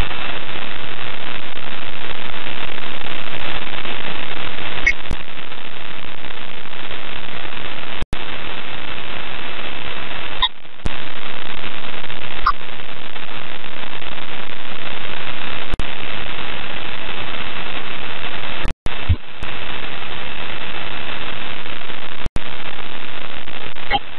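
Loud, even radio static hiss on the ISS space-to-ground audio link, broken several times by brief dropouts and sharp clicks, with a faint steady high tone running through it.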